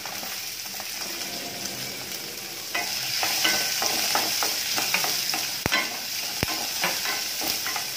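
Chopped onions and garlic sizzling in hot oil in a stainless steel kadai with fried urad dal, a wooden spatula stirring and scraping them around the pan. The stirring gets louder about three seconds in, with two sharp clicks a little past the middle.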